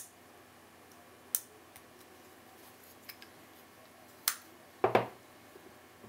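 Abus 55/45 brass five-pin padlock being picked: a few sharp, separate metallic clicks from the pick working the pins, then a louder double clack just under five seconds in as the lock opens and the shackle springs free.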